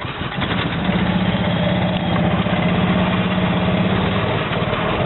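Engine of a Club Car Carryall utility cart running as it drives away. It gets louder over the first second, then holds a steady hum.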